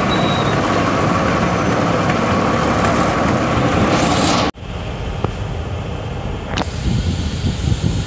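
Loud, steady rumbling noise of an open-air ride vehicle in motion, which cuts off abruptly about halfway through. It is followed by the quieter low rumble of a car rolling slowly, heard from inside the cabin, with a few light clicks.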